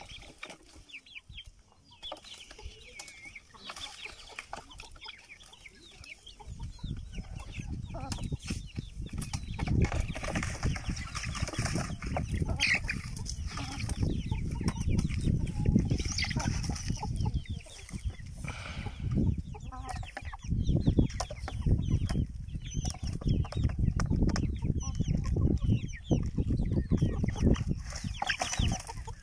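A flock of country chickens clucking and calling as they feed, with many short overlapping calls. From about seven seconds in, a low rumbling noise sits beneath the calls and is louder than they are.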